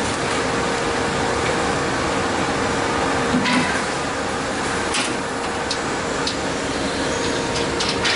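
Wood dowel sanding machine running steadily with a constant hum, and a few sharp clicks and knocks scattered through it.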